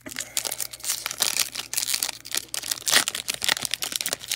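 Foil wrapper of a Panini Donruss basketball card pack crinkling and crackling as it is torn open and peeled apart by hand, in an irregular run of sharp crackles.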